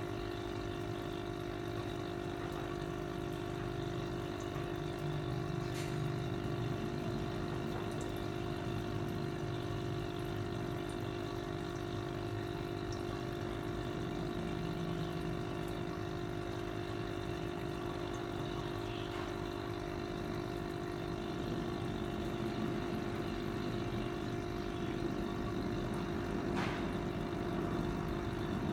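Aquarium air pump humming steadily, with air bubbling through the water of a goldfish bowl.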